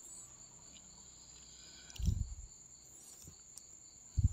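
Faint, steady high-pitched insect trill, like a cricket, with two short low thumps about two seconds in and near the end.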